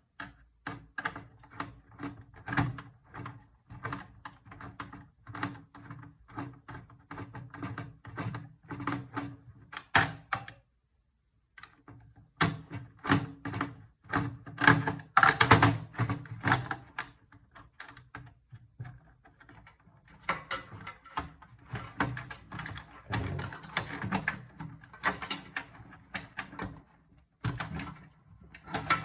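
Irregular clicks, taps and knocks of hand tools and parts being worked inside a desktop computer case as it is taken apart, with a short silent gap about eleven seconds in.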